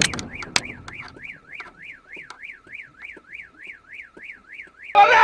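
Car alarm warbling: a siren tone sweeping up and down about three to four times a second, set off by a collision. A few sharp knocks at the start.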